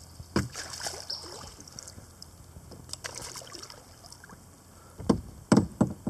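Kayak paddling in shallow river water: paddle strokes splashing and dripping, with scattered small knocks. Near the end come several louder, deep thumps and splashes.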